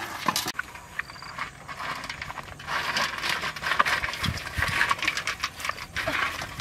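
Rustling brush and footsteps, with scattered clicks, knocks and a couple of low thuds, as a large metal basin is carried through the vegetation.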